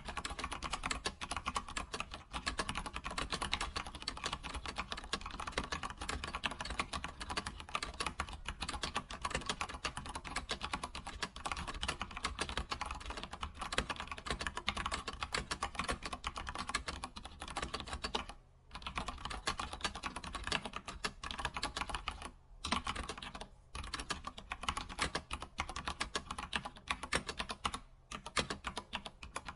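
Computer keyboard being typed on continuously: fast, dense key clicks, with a few short pauses in the second half.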